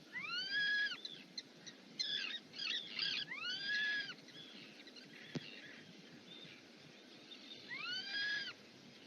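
A bird calling: three arched calls that rise and then fall in pitch, with a quick chatter of short notes between the first two. A single sharp click comes midway.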